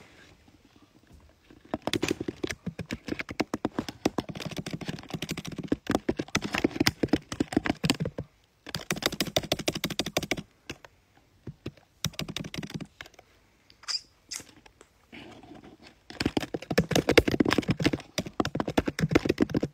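Fast typing on a phone held close to the microphone: rapid runs of tapping clicks in several bursts with short pauses between them.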